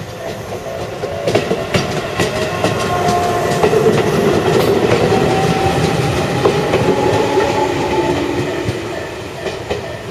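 A two-car Tobu Kameido Line electric train passing over a level crossing, its wheels clacking over the rail joints, growing louder to a peak midway and fading as it goes by. The crossing's warning bell rings steadily under it.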